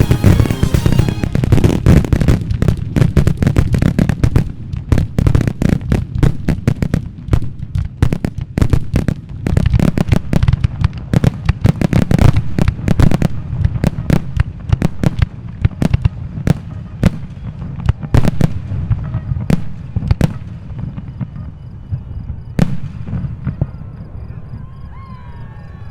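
Professional aerial fireworks firing a rapid barrage of shells: many sharp bangs a second, the closing finale of the display. The bangs thin out and grow fainter in the last few seconds, with a single loud report near the end.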